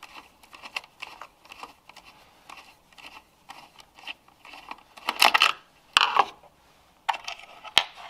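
Small metallic clicks and scrapes of a screwdriver turning a terminal screw on a 12 V blade fuse box. Then a few louder clatters and a sharp click as the screwdriver is set down and the loose screw drops onto the wooden board.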